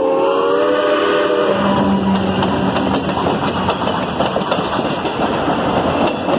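Steam locomotive's chime whistle sounding a chord as the engine passes, dipping slightly in pitch and cutting off about a second and a half in. Then the steady rolling noise of the passenger cars' wheels on the rails, with a brief low engine drone just after the whistle stops.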